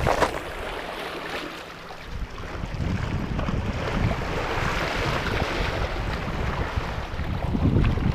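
Wind rumbling on the microphone over waves washing on a rocky shore, with a brief whoosh right at the start as a spinning rod is cast. The wash of the water grows louder from about three seconds in.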